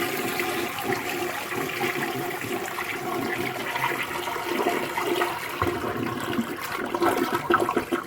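A 2005 American Standard Colony toilet flushing: a loud, steady rush of water through the bowl that cuts off sharply near the end as the flush finishes. The owner calls it a really nice flush but judges its performance poor.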